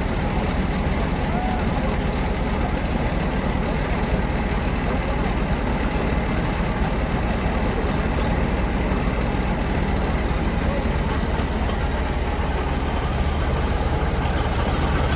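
Heavy diesel farm machinery running steadily at close range, a constant, even engine sound strongest in the low range, with no revving or sudden changes.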